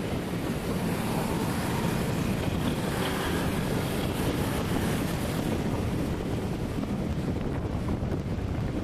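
Steady wind noise buffeting the microphone over a low, continuous rumble of road and engine noise, as heard while riding along on the road. No horn is heard.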